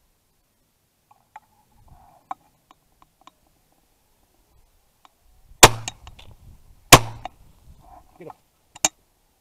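Two shotgun shots just over a second apart at a flying pigeon, followed by a sharper, quieter click near the end, with a few faint clicks before the shots.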